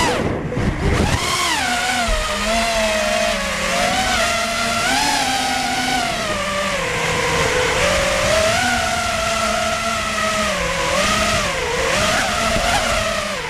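High-pitched whine of an FPV racing quadcopter's four brushless motors and 5-inch props, its pitch rising and falling continuously with the throttle. About half a second in the whine drops sharply, then climbs again.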